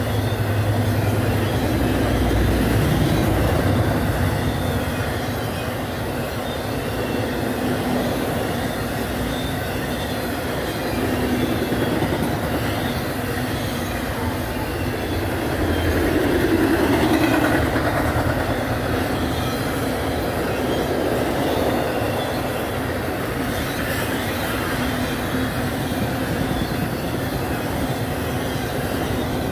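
Intermodal freight cars carrying highway trailers rolling past: a steady rumble and rattle of steel wheels on the rails, with faint high wheel squeal. It swells a little about three seconds in and again around the middle.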